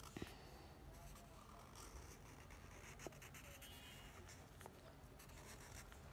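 Faint scratching of a felt-tip permanent marker drawing strokes on notebook paper, with a few soft clicks.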